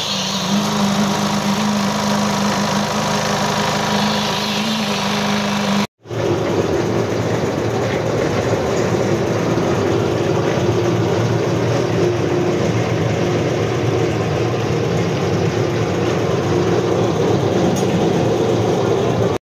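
Small engine of concrete-pouring equipment running steadily. The sound breaks off for an instant about six seconds in, then carries on as a noisier, less even engine drone.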